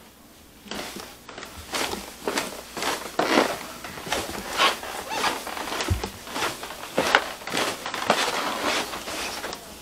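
Footsteps on carpet, about two a second, mixed with rustling of clothes and the handheld camera, starting about a second in.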